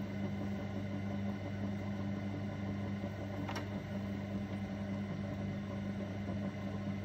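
Electric potter's wheel turning slowly, its motor giving a steady low hum. A single short click about three and a half seconds in.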